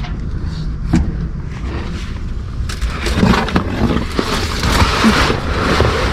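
Rummaging through trash in a dumpster: a knock about a second in, then plastic rustling and items clattering from about three seconds in, over a steady low rumble.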